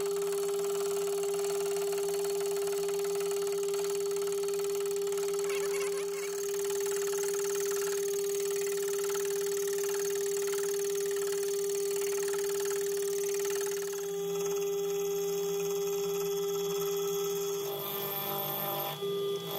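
AL960B mill-drill running with a slitting saw spinning in its spindle: a steady motor and gearbox whine. The sound changes about eighteen seconds in.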